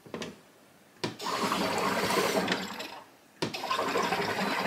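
SodaStream Spirit soda maker carbonating a bottle: CO2 gas hissing and bubbling through the liquid in bursts as the top is pressed. A brief burst comes right at the start, then two longer ones of about two seconds each.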